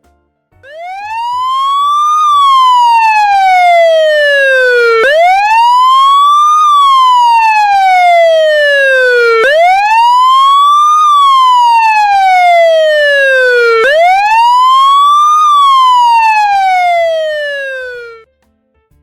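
Siren wailing in four slow cycles. Each cycle rises for about a second and a half, falls for about three seconds, then jumps back to its low start. It starts about half a second in and stops shortly before the end.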